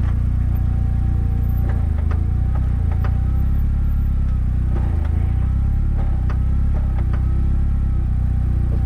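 Westfield SEiW kit car running steadily, its engine a constant low drone, with several sharp knocks at irregular intervals through the middle: the knocking noise being hunted for.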